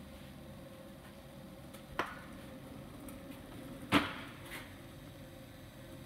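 Two sharp knocks about two seconds apart, the second louder and ringing briefly, over a steady low hum.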